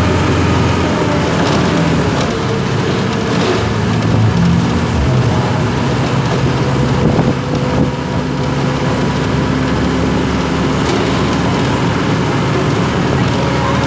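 A bus in motion, heard from inside: a steady engine drone with tyre and road noise, the engine note shifting a few seconds in.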